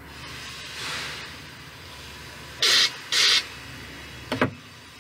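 Aerosol shaving cream can spraying in two short hissing bursts about half a second apart, after a fainter hiss about a second in. A single knock follows near the end.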